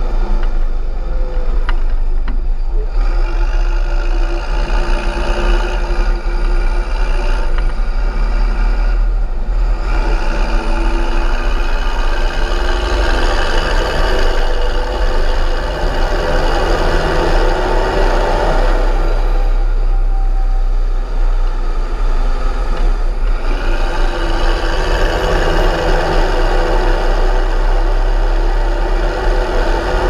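Fendt 926 Vario tractor's MAN six-cylinder turbo-diesel running hard, pulling a fully loaded silage trailer. A high turbo whistle rises and falls over it, and the engine eases off briefly about ten and twenty seconds in.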